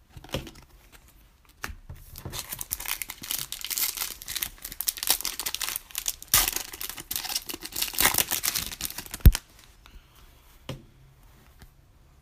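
Foil trading-card pack wrapper being torn open and crinkled for several seconds, ending in a sharp knock.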